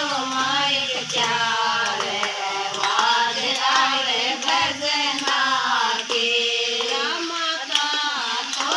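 A woman's voice singing a Hindi devotional bhajan in long held phrases, with hand claps keeping time.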